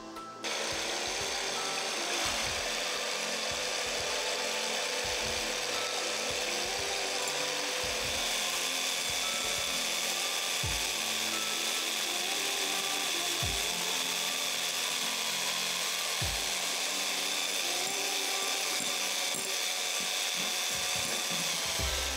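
Electric hand mixer switched on just after the start and running steadily, its twin beaters whipping egg whites in a glass bowl into a stiff foam.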